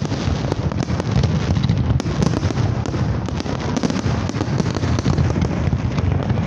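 Fireworks display: aerial shells bursting overhead in a rapid, unbroken barrage of bangs and booms over a continuous low rumble.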